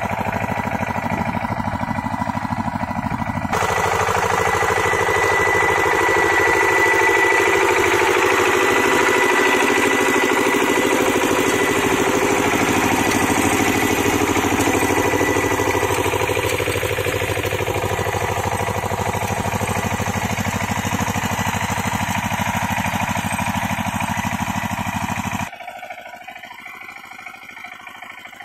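KAMCO power tiller's single-cylinder diesel engine running steadily under load as it drags a leveller through a puddled paddy field. It gets louder about three seconds in and much fainter near the end, when it is heard from farther off.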